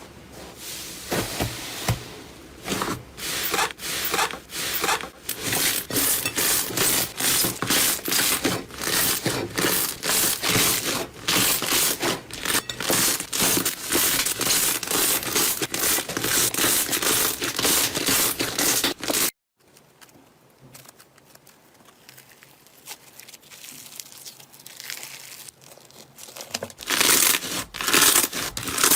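Slime being squeezed and stretched by hand, with a fast, dense run of crackling and popping. It breaks off suddenly about two-thirds of the way through, stays much quieter for several seconds, then the crackling returns loud near the end.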